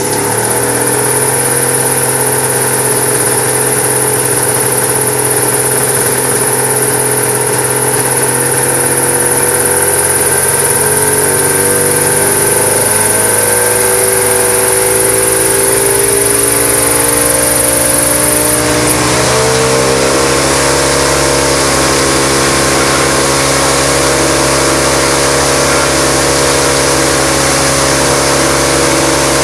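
Engine of a Cricket single-seat gyrocopter running on the ground with the rotor turning slowly. The engine note rises gradually through the middle, steps up about two-thirds of the way through and then holds steady at the higher speed.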